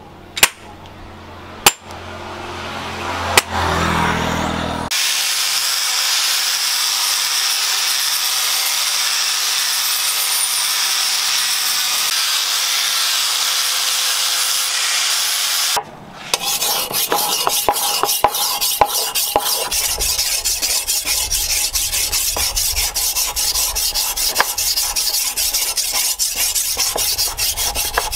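A few sharp knocks as a wooden handle is seated on a sword's tang. Then an angle grinder with a flap disc grinds the steel blade with a steady hissing grind for about ten seconds. After a brief break, the blade is stroked on a wet whetstone in rapid scraping strokes.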